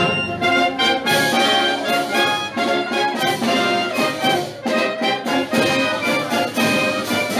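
A marching wind band playing a march in the street: trumpets, trombones and other brass with reeds, loud and continuous.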